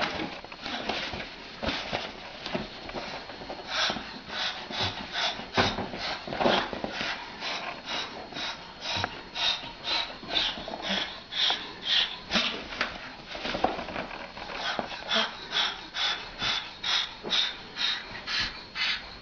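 A cockatoo making a run of short, harsh, breathy calls, about two a second, while play-fighting with a cat.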